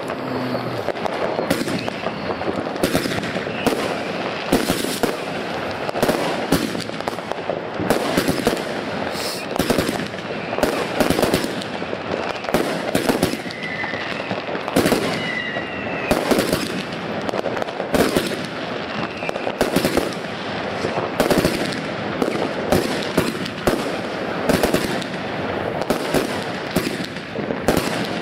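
Consumer fireworks going off: a dense, continuous run of bangs and crackling, with many louder reports standing out. A couple of short whistles come about halfway through.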